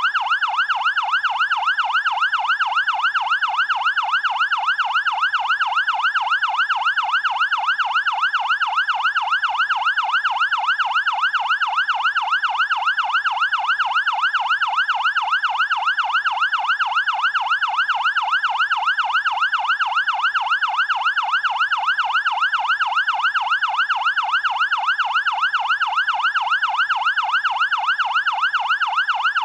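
Fire department siren in a fast yelp: one tone sweeping up and down several times a second, steady and unchanging throughout.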